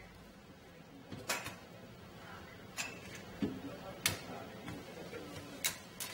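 A handful of light, sharp clicks and knocks, about six, spread over quiet room noise.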